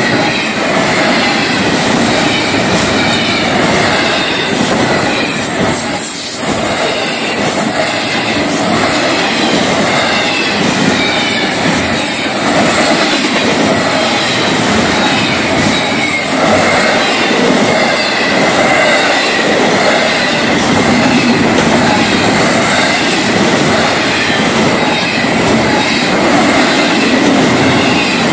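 Florida East Coast Railway intermodal freight cars rolling past close by: a loud, steady rumble and clatter of wheels on the rails.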